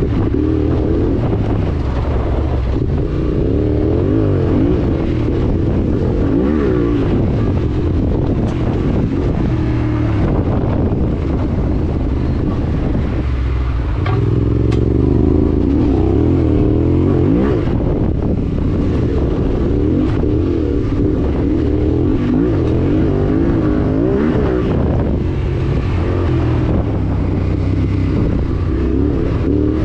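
Yamaha Ténéré 700's parallel-twin engine running under way on a dirt track, heard from on the bike, its revs rising and falling constantly with throttle and gear changes.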